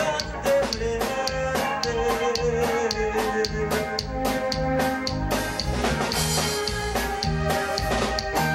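Live band music: a steady drum beat with repeating bass-guitar notes and electric guitar.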